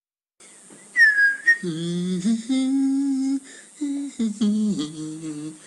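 A man humming a tune in long held notes that step up and down, after a short falling whistle about a second in.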